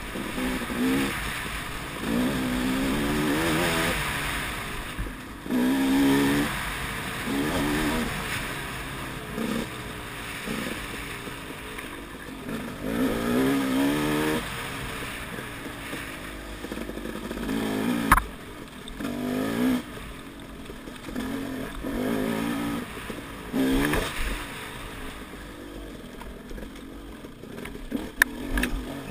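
Dirt bike engine revving up and down over and over as it is ridden over a rough trail, the throttle opened and shut every second or two. A sharp knock about eighteen seconds in.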